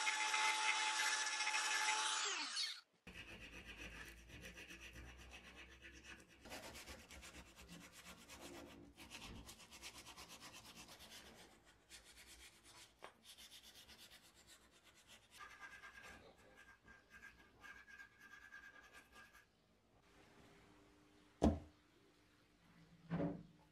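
A handheld rotary tool with a conical bit grinds a black blowtorch knob with a steady high whine, then winds down and stops about three seconds in. It is followed by repeated rubbing strokes of sandpaper on the knob. Two short knocks come near the end.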